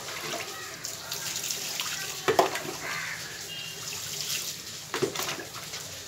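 Water being scooped from a bucket and poured with a mug over a cat, splashing onto wet concrete, with two sharper, louder moments about two and five seconds in.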